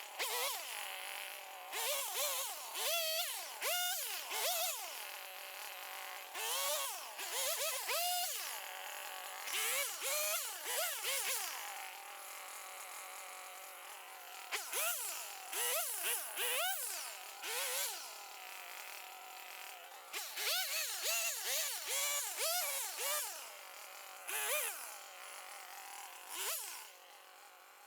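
Husqvarna 555 two-stroke chainsaw cutting stumps, its engine pitch repeatedly rising and falling as it revs up and pulls down into the cuts.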